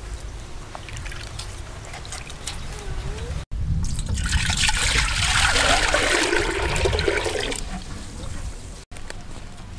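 Water poured from a plastic jug into a clay pot, splashing and gurgling loudly for about four seconds and then tailing off. Before it, faint knife strokes slice raw shark fillet on a wooden chopping board.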